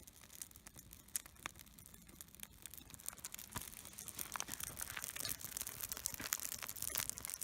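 Dry wood crackling and snapping in many small sharp cracks, growing denser and louder from about halfway through.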